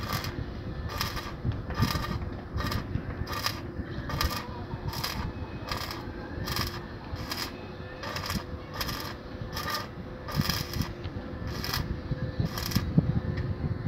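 Stick welding on steel tube: the arc crackles in short repeated bursts, about one and a half a second, over a steady hum.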